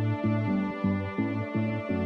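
Background music: an instrumental passage with a steady beat and pitched notes changing about three times a second, no singing.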